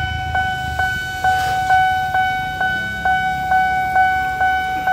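Railway level-crossing warning bell ringing steadily at about two strikes a second, the alarm that sounds while the barriers close for an approaching train.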